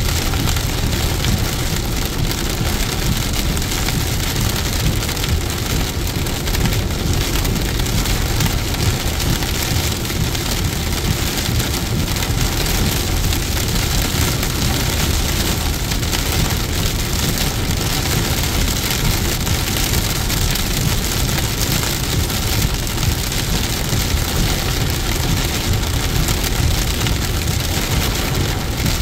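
Heavy rain pelting a car's windshield and roof, heard from inside the moving car, with tyre and road noise underneath. The rain keeps up steadily throughout.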